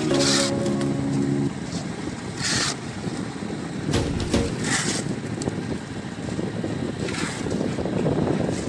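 Music that stops about a second and a half in, followed by a rough steady rumbling noise with a hissing swoosh about every two and a half seconds and one low thump midway.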